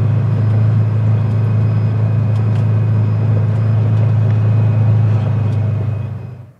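Engine of a side-by-side utility vehicle running steadily at cruising speed, heard from the driver's seat as a loud, even low drone; it fades out near the end.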